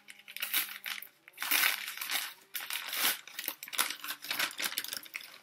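Newspaper wrapping being pulled open and crumpled by hand, crinkling in repeated irregular bursts.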